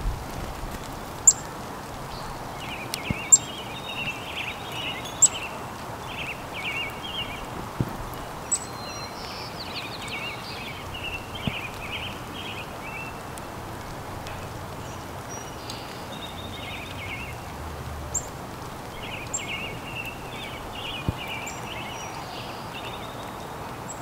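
Small birds twittering in several bursts of quick high chirps over a steady outdoor hiss. Sharp clicks and taps from finches feeding at a hanging seed feeder come every few seconds and are the loudest sounds.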